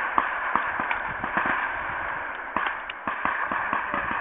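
Gunfire on a shooting range: several guns firing a string of irregular, overlapping shots, a sharp crack every half second or so.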